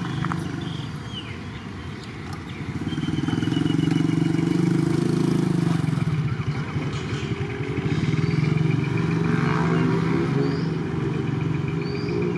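An engine running close by with a steady pulsing, swelling louder about three seconds in and staying loud, with a thin high whine above it.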